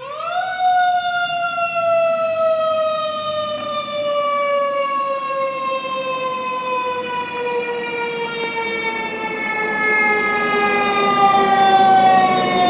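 Fire apparatus siren, climbing quickly in pitch at the start and then falling slowly and steadily for about twelve seconds. It grows louder near the end as the fire engine draws near.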